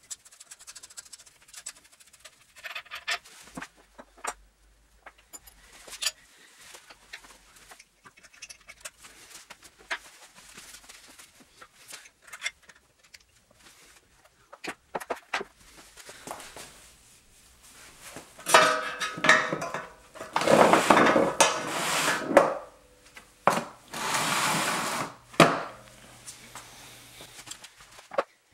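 Hand-tool work on a motorcycle frame's steering head: scattered metal clicks and clinks at first, then several seconds of louder metal rattling and scraping in the last third as the steering stem is worked out of the head.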